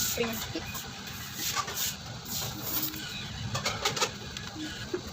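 A bird cooing faintly in short, low notes, with a few sharp clicks from handling.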